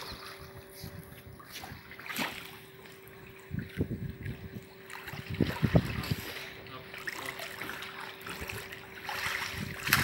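Swimmers kicking and paddling in a pool, with irregular water splashes that are loudest about six seconds in. A faint steady hum sits underneath.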